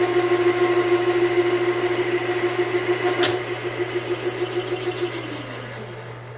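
Machine tool running a boring cut on the crankshaft's pilot-bearing hole, a steady whine over a hiss, with a sharp click about three seconds in. Near the end the machine is switched off and spins down, its whine falling in pitch and fading.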